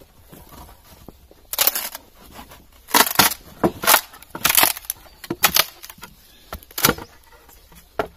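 Western red cedar shake splitting off the block as a froe is levered through the grain: a string of irregular crackling, tearing bursts of wood fibre over several seconds.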